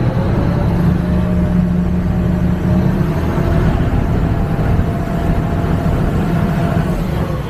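River tour boat's engine running under load with a steady low rumble. Its pitch rises in the first second, holds, then drops near the end.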